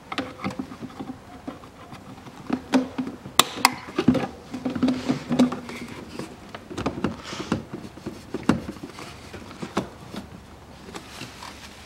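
Plastic engine air-intake duct being handled and pushed into place on its connection: irregular clicks, knocks and plastic-on-rubber rubbing, with a short squeaky rub about halfway through.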